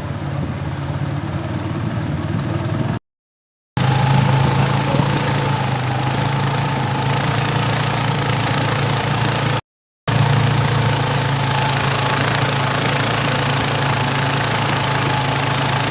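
A small boat's engine running steadily with a constant low drone. The sound cuts out completely twice, briefly, about three seconds in and again near ten seconds.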